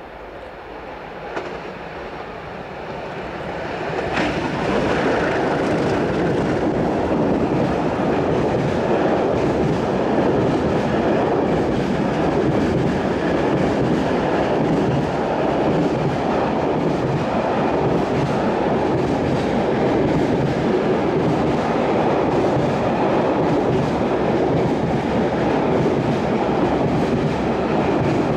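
A pair of MLW diesel locomotives hauling a heavy freight train of loaded pipe wagons draws near, growing louder over the first four seconds. The long string of wagons then rolls steadily past, their wheels rumbling and clattering on the rails.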